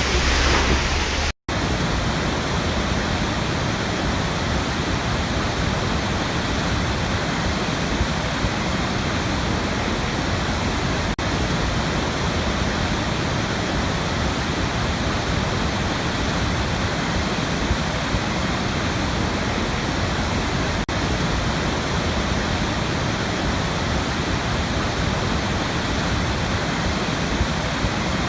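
Waterfall: a steady, even rush of falling water. About a second and a half in there is a split-second cut to silence, and before it the water sounds rumblier and heavier in the lows.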